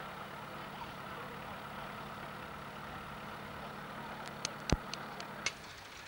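Tractor engine idling with a steady low hum, with a few sharp clicks near the end.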